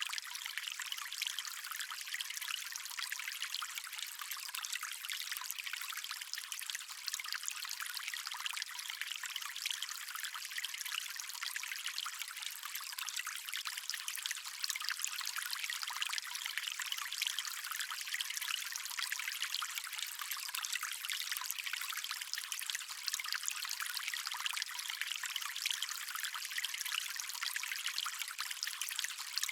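Stream water flowing and trickling steadily, an even bright splashing hiss with no low rumble.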